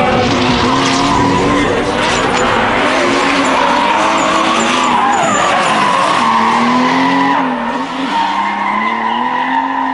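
Drift car's engine running hard, its pitch rising and falling as the throttle is worked, with tyres squealing through a drift. The sound eases off a little near the end.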